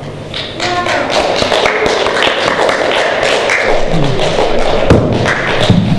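Audience applause: many people clapping, starting about half a second in and continuing steadily.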